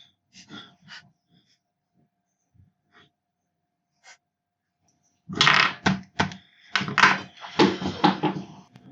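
A few faint clicks and taps, then about five seconds in a dense run of louder clicks, knocks and rustling from hands handling PlayStation 4 parts and cables during reassembly.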